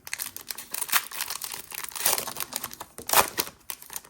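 Foil Pokémon booster pack wrapper crinkling and being torn open, with louder rips about one, two and three seconds in.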